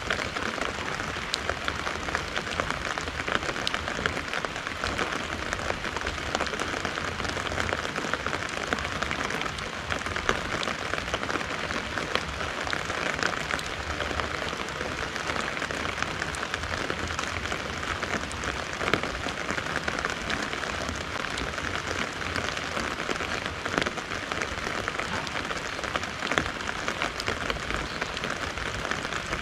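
Steady moderate rain falling on a garden and pattering on an umbrella canopy close overhead, with a constant hiss and many sharp drop taps throughout.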